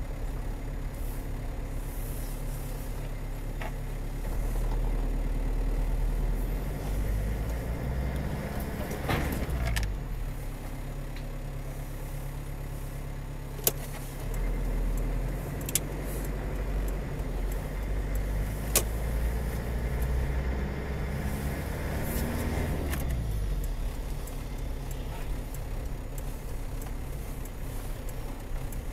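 A car on the move, heard from inside: a steady engine and road rumble. The engine note climbs and then drops twice, and a few sharp clicks come through.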